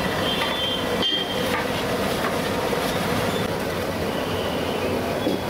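A steady, loud, noisy rumble, with brief high squeaks of metal utensils scraping a large aluminium cooking pot.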